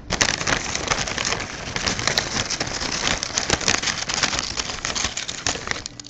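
Dense, continuous crackling and rustling made of many close clicks, starting suddenly and stopping about six seconds later.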